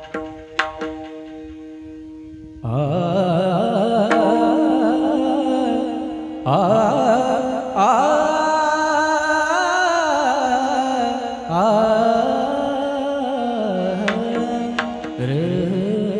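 Devotional bhajan singing: a singer draws out long, heavily ornamented, wavering notes over a steady held drone, with a few hand-drum strokes at the start and again near the end. The voice comes in about three seconds in, after the drone and drum alone.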